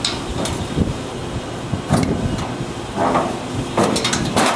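A flathead screwdriver prying at a cabinet's bottom plate: scraping and knocking, then a quick run of sharp clicks about four seconds in as the plate works loose. A steady background hum runs underneath.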